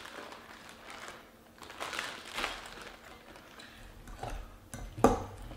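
Plastic bag of shredded coleslaw mix rustling as the cabbage is shaken out into a bowl, then a utensil stirring the slaw, with several sharp clicks against the bowl near the end.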